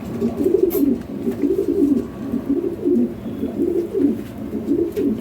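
Lahori pigeons cooing: a run of low, rolling coos, each rising and falling, one after another without a break.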